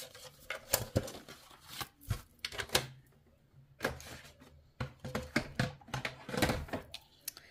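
Cardstock being handled on a scoring board and craft mat: irregular taps, clicks and short scraping rustles of paper.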